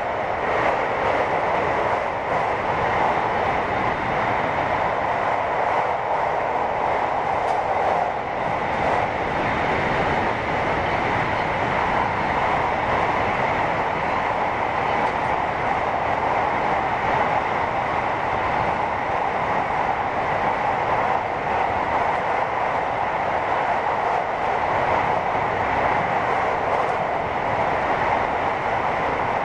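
Running noise heard inside the motor car of a JR West 521 series electric train (Mitsubishi IGBT VVVF drive) travelling at a steady speed: an even rumble of wheels on rail with a faint steady whine above it.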